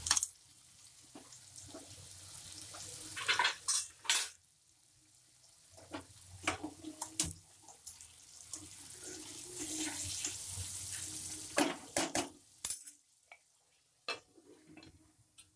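Water poured into hot curry gravy in a non-stick pan, hissing and sizzling, then the gravy stirred with a spatula that scrapes and knocks against the pan. Near the end a glass lid is set on the pan with a couple of light clicks.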